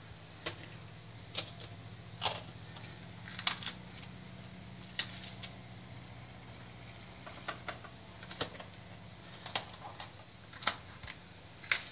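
Kitchen knife slicing green peppers and vegetables over a plate, giving irregular sharp clicks as the blade cuts through and taps the plate. A steady low hum runs underneath.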